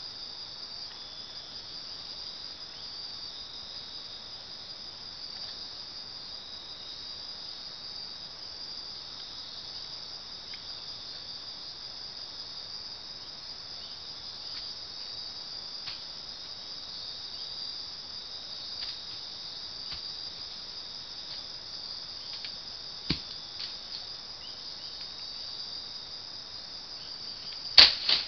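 Steady high-pitched chorus of night insects, with a few faint clicks in the second half and one loud sharp click near the end.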